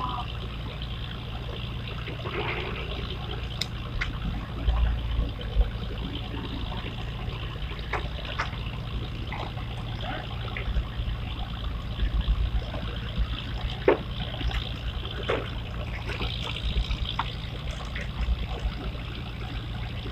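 River water trickling and lapping at the bank, a steady wash of water noise under a fluctuating low rumble, with scattered small clicks and splashes.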